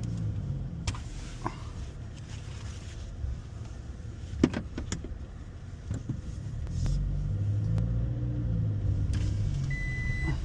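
Car engine and tyre rumble as the car is driven and pulled over, with a few sharp clicks and knocks, the loudest about halfway through. A short steady beep sounds near the end.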